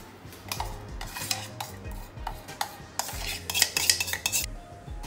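A metal spoon scraping and tapping against a stainless steel bowl, pushing thick Oreo cake batter out into a baking pan. A quick cluster of scrapes about two-thirds of the way through is the loudest.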